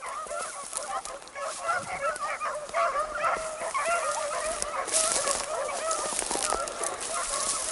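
A pack of beagles baying together on a rabbit's track, many voices overlapping in a continuous chorus. A rustling noise joins about five seconds in.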